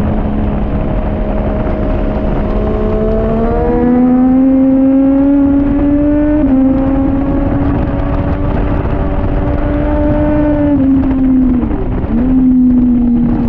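2014 Triumph Daytona 675R's inline-three engine pulling hard at high revs, its pitch climbing, with a quick shift about six and a half seconds in. Near the end it drops sharply, then picks up again. A steady rush of wind noise runs under it.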